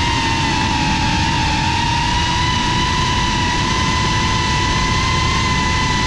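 FPV quadcopter's brushless motors whining at a steady high pitch as the drone cruises, with a low rush of wind over the onboard camera's microphone.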